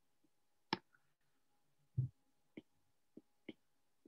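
A stylus tapping and scratching on a tablet's glass screen while drawing: about five faint, separate clicks, one of them about two seconds in duller and lower than the rest.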